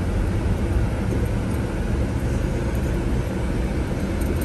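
Coach bus heard from inside the passenger cabin as it drives: a steady low rumble of engine and road noise.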